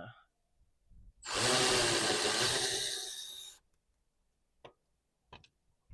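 Power tool spinning for about two and a half seconds, backing out a bolt of the underbody cover, its whir sagging slightly just before it stops. A few light clicks follow near the end.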